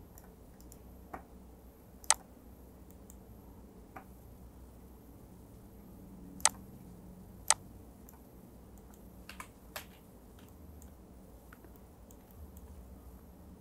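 Computer mouse clicking: sparse, irregular single clicks a second or more apart, two of them louder, with a quick cluster about two-thirds of the way in, over a faint low hum.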